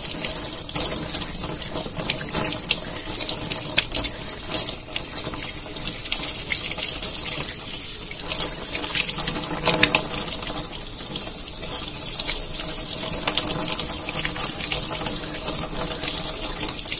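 Tap water running in a steady stream onto an orchid's bare roots and splashing into a washtub as the roots are rinsed by hand.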